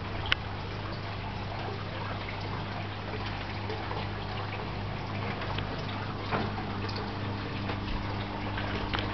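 Water trickling steadily through an aquaponics grow bed, with a steady low hum underneath and a couple of sharp clicks.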